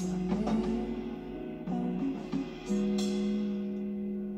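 Guitar-led music playing from a vinyl record on a turntable: strummed chords with sharp attacks, then a low note held through the second half.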